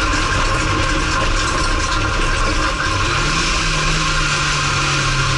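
Renault race car's engine heard from inside the cabin, running at low, steady revs; about three seconds in the revs rise a little and hold, over a steady hiss.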